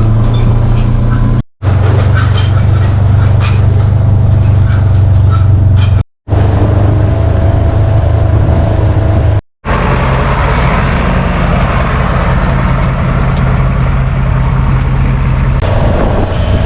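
Farm tractor engine running steadily at a constant speed, the sound cut off sharply three times for a moment.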